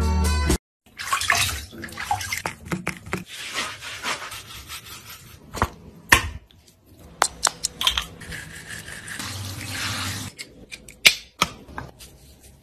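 Water splashing and a sponge rubbing through a dog's wet coat in a bathtub, with a few sharp knocks.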